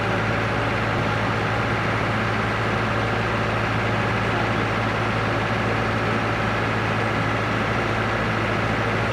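Engine of a boat travel lift running steadily under load while it hoists a motor yacht out of the water in its slings, a constant low hum.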